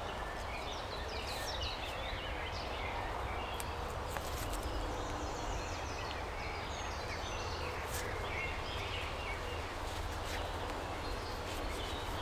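Birds chirping now and then over a steady low background rumble, with a few faint clicks.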